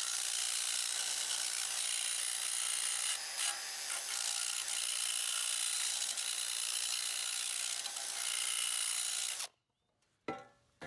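Drill spinning a sandpaper attachment against the freshly cut end of an exhaust pipe, deburring the edge: a steady sanding noise that stops abruptly about nine and a half seconds in.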